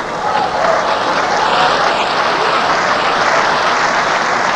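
A large congregation applauding: a dense, steady clatter that swells in the first second and holds.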